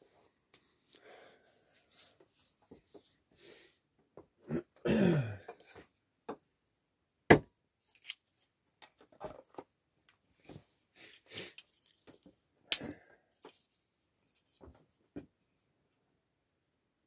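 Split kindling being handled at a wood stove: sticks knocking and clattering against each other and the stove, with two sharp wooden knocks about seven and thirteen seconds in. About five seconds in there is a short rasping sound that falls in pitch.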